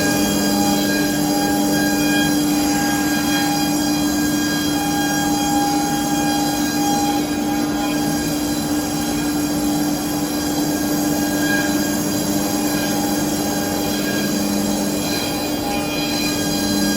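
Mercury 3015-size CNC router running: a steady whine made of several tones, with a higher tone and a lower one dropping in and out every few seconds.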